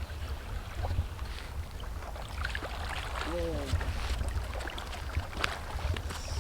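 Wind rumbling on the microphone, with faint scattered clicks and a short voice sound a little over three seconds in.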